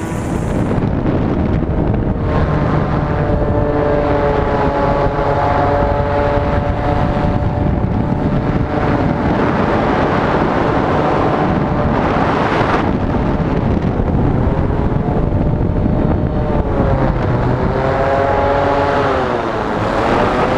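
Propeller engine of a tethered Fly By Wire craft running hard under a heavy rush of wind on the microphone. Its pitch dips and rises a few times in the second half as the craft swings on the wire.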